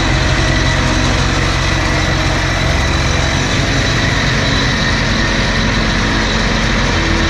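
Tractor engine running steadily, a low hum under a constant hiss.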